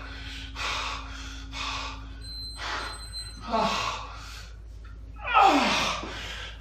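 A man breathing hard and fast from heavy exertion, about one breath a second, near the end of a set of dumbbell pull-overs. Twice the breath turns into a strained groan that falls in pitch, the louder one about five seconds in as the set ends.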